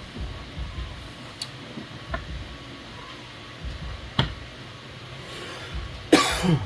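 Light clicks and taps of an Allen key and 3D-printed plastic parts being handled. Near the end there is a brief, louder scrape with a falling squeak.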